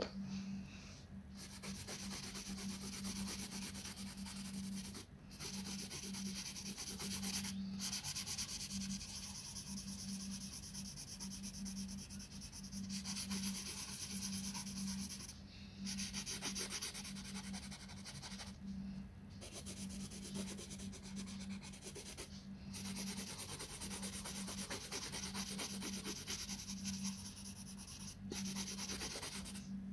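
Coloured pencil shading on paper: quick back-and-forth scratching strokes, broken by a few short pauses, over a steady low hum.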